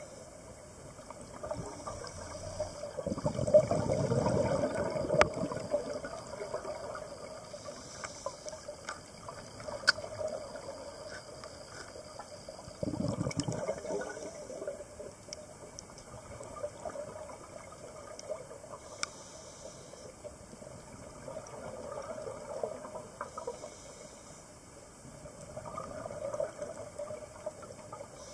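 Underwater sound of a scuba diver breathing through a regulator: exhaled bubbles rumble out loudest about 3 to 6 seconds in and again around 13 seconds, with softer breaths in between and a few sharp clicks.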